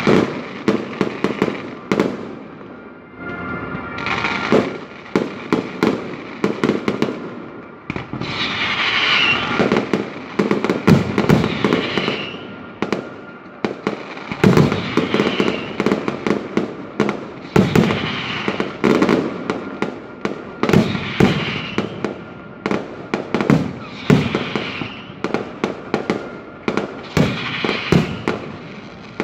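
Fireworks display: aerial shells bursting in a rapid, irregular run of sharp bangs, several a second, over a continuous hiss.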